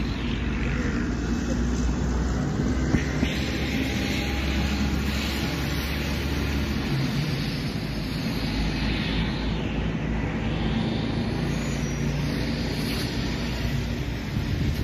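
A steady low engine hum that shifts slightly about seven seconds in, with wind rushing on the microphone.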